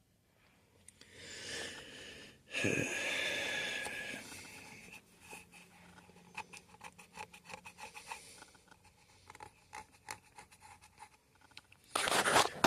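Rubbing and scraping as a guitar body and its parts are handled and turned on a work surface, a louder rub about three seconds in, then many small irregular clicks and taps.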